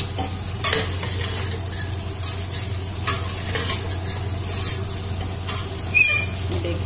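A long metal spoon stirring and scraping a mixture of boiled chana dal and fried bitter gourd peels and seeds around a stainless steel pot, with the hot ghee sizzling steadily under it. A brief high-pitched squeal comes about six seconds in.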